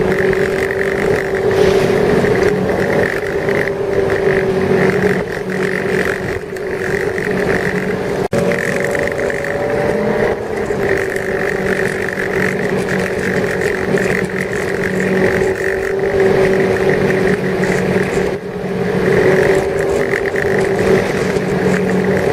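Motorboat engine running steadily at a constant speed, its drone holding an even pitch with slight wavers.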